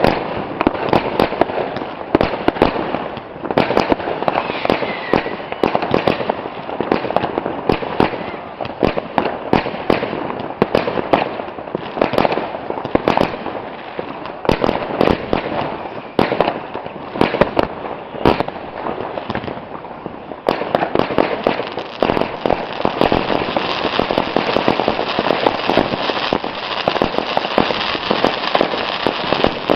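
Consumer fireworks going off in a rapid, continuous string of bangs and pops. About twenty seconds in, a denser, higher crackle joins and keeps going.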